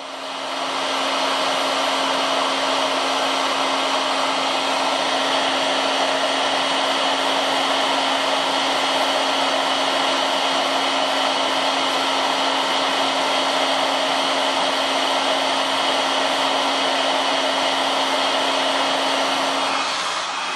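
Hot air rework gun blowing a steady rush of air with a low fan hum, set to 300 °C to melt the solder under a SIM card reader on a phone motherboard; the hum stops near the end as the gun is lifted away.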